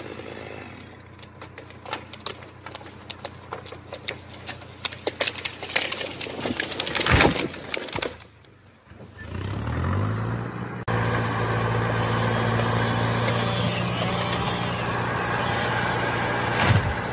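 Snow-laden spruce being felled: wood cracking and branches snapping as the tree gives way, then a heavy crash as it lands about seven seconds in. From about ten seconds an engine comes up and runs steadily, and a second tree crashes down near the end.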